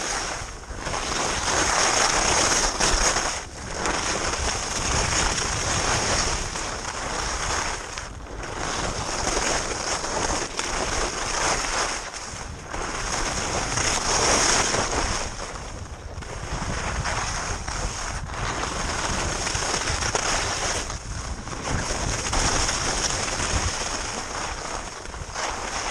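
Skis scraping and hissing over firm, chopped snow through a run of turns, with wind rushing over the microphone. The noise swells and drops every two to four seconds as each turn is carved.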